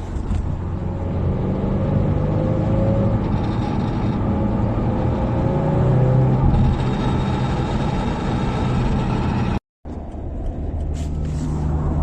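Subaru WRX with a Fujitsubo Authorize RM+C exhaust, heard from inside the cabin while driving: steady engine and road noise with a low exhaust drone. The sound cuts out for a moment about ten seconds in, then carries on.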